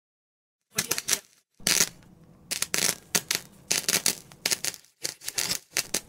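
Irregular run of sharp clicks and crackles, three or four a second, starting about a second in: an intro sound effect for an animated channel logo.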